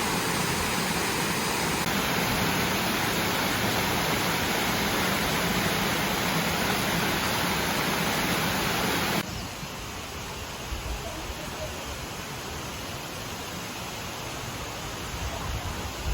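Small waterfall, water rushing steadily. About nine seconds in it cuts abruptly to a quieter, softer rush.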